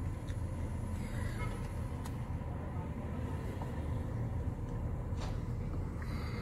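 Steady low rumble of a van's engine and road noise, heard from inside the passenger cabin.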